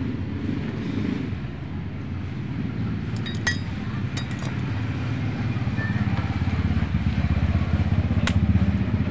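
A motorcycle engine running steadily, growing louder over the last few seconds, with a few light metallic clinks of parts or tools being handled.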